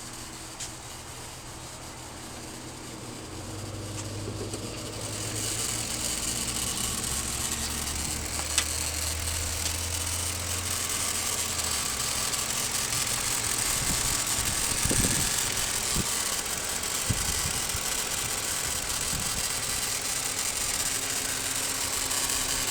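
Lincoln Town Car engine idling with its power steering pump running noisily, low on fluid from a leak. The noise grows louder about five seconds in.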